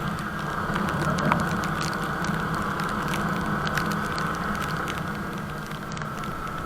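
Yamaha R15 V3's single-cylinder engine running steadily as the motorcycle is ridden, a low drone with scattered crackling ticks on the microphone.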